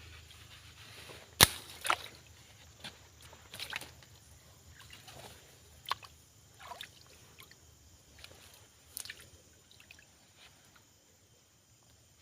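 Scattered sharp clicks and small splashes of water, irregularly spaced. The loudest is a single sharp knock about a second and a half in.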